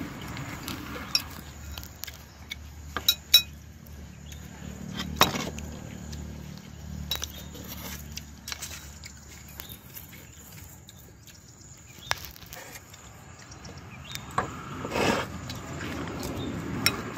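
Scattered sharp knocks and clicks of a large knife blade on a wooden chopping board as sliced lemongrass is handled, a second or more apart. Near the end, a metal spoon scrapes and clinks in a ceramic bowl.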